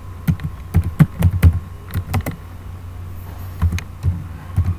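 Typing on a computer keyboard: irregular key clicks in short flurries, with a pause of about a second midway, over a low steady hum.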